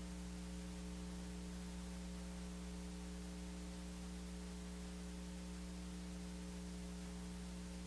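Faint steady electrical mains hum of several pitches with a light hiss in the recording.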